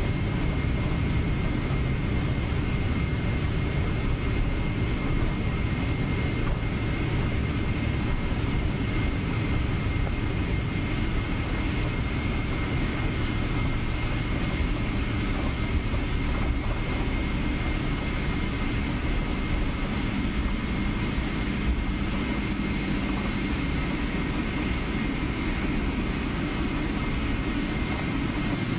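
Cabin noise of a Boeing 777 on its landing roll: the jet engines and rushing air make a steady, loud rumble, with a thin high whine held throughout.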